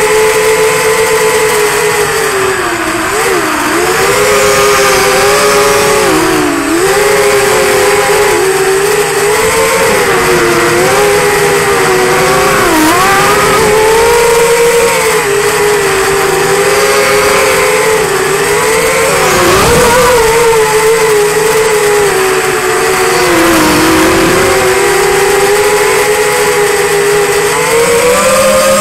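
QAV210 racing quadcopter's four brushless motors and propellers whining loud and close, as heard through the onboard camera, the pitch wandering up and down with the throttle and dipping briefly several times.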